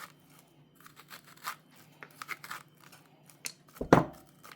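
Kitchen handling sounds as spaghetti squash halves are moved into a glass baking dish: short scraping and rustling noises, then a heavy thump about four seconds in.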